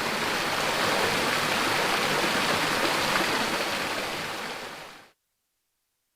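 Waterfall rushing steadily, then fading out to silence about five seconds in.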